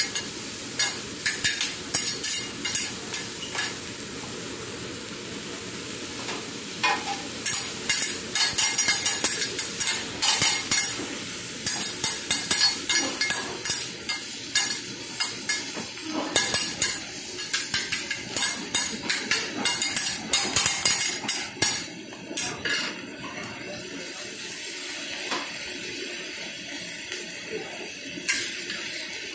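Beef and fried rice sizzling on a flat-top hibachi griddle, a steady hiss of frying broken by frequent sharp clacks and scrapes of two metal spatulas on the steel plate.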